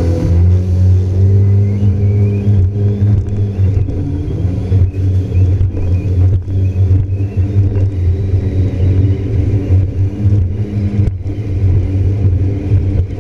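Yamaha FX HO WaveRunner's four-stroke engine and jet drive running at cruising speed, a steady low drone with a hiss of wind and spray over it. The level dips briefly several times.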